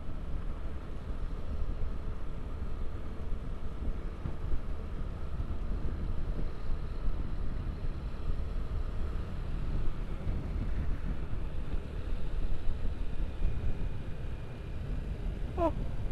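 Motorcycle riding along: steady engine and road rumble with wind buffeting the microphone.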